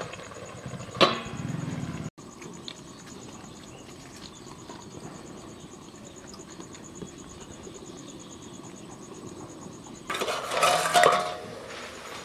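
A metal lid set down on a metal cooking pot (kadai) with a ringing clink about a second in. A low, steady background follows, and near the end the lid clatters loudly against the pot as it is lifted off.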